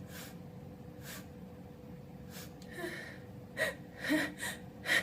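A man's halting, gasping breaths as a sneeze builds. A few faint sniffs give way, about three and a half seconds in, to sharper catching inhalations with a slight voice in them, coming quicker and louder toward the end.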